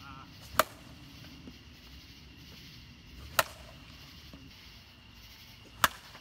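A slowpitch softball bat hitting the ball three times, a few seconds apart: each a single sharp crack.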